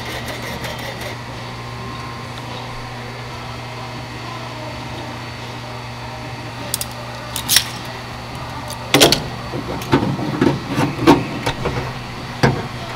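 Metal clicks, clunks and rattles as a door-popper solenoid and its pull cable are handled and fitted inside a steel truck door, over a steady low hum. A few sharp clicks come about seven seconds in, then a busy run of knocks and rattles fills the last four seconds.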